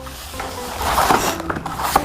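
Chart paper being handled, rustling and crinkling with a few short clicks, over quiet background music.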